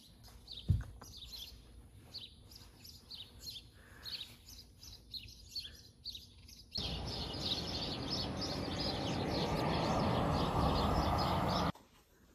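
Small birds chirping repeatedly, short high calls in quick succession, with a single low thump about a second in. About seven seconds in, a loud steady rushing noise joins the chirping and cuts off abruptly near the end.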